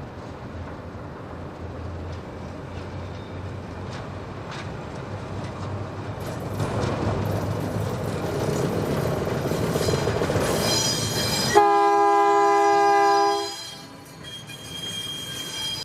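Diesel locomotive running and growing steadily louder, then a loud chorded train horn blast about twelve seconds in, lasting about two seconds, falling away to a softer trailing horn tone.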